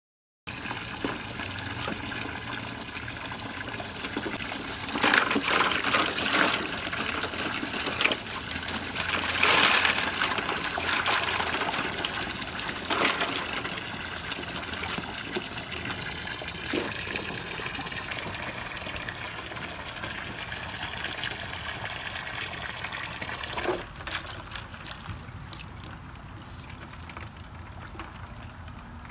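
A stream of water pouring and splashing into a plastic paddling pool, a steady gush that swells louder a couple of times. About 24 seconds in it gives way to quieter splashing and sloshing.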